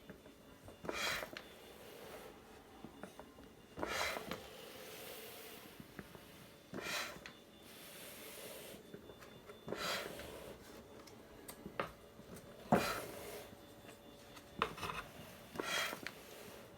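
DIY mechanical ventilator cycling: a brief mechanical stroke recurs about every three seconds, several of them followed by a soft hiss.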